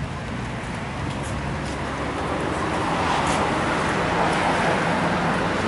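Street traffic: a vehicle's engine and tyre noise growing steadily louder as it approaches, over a low engine rumble.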